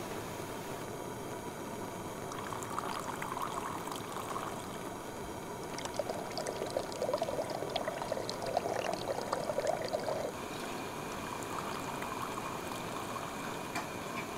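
Stream water flowing steadily, louder for a stretch a few seconds in and again through the middle.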